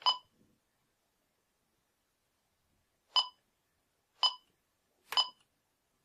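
Bosch B-Series security keypad giving short electronic key-press beeps as its buttons are pressed to move through the programming menus: one right at the start, then three more about a second apart near the end.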